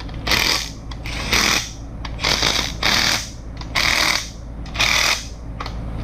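Cordless power driver on a low setting run in six short bursts, about one a second, driving bolts home, likely the timing cover bolts on an LS engine block.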